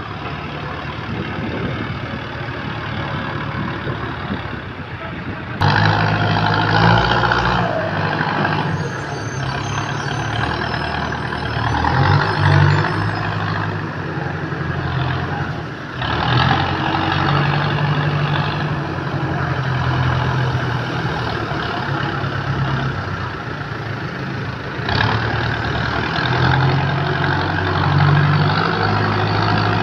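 Diesel engines of a JCB backhoe loader and a road roller running under load while the backhoe works to free the roller stuck in soft soil. The engine hum jumps abruptly in level and character a few times.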